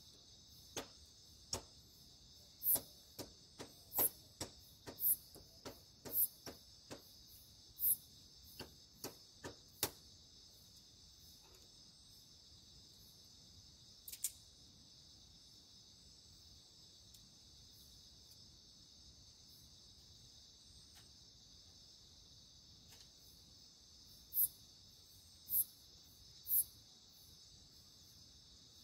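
Steady high-pitched chorus of night insects chirring. Over it come sharp cracks: a quick irregular run of them in the first ten seconds, one in the middle and three more near the end.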